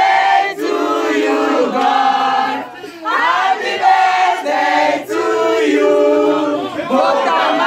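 A group of people singing together, several voices at once, with a brief break a little before the middle.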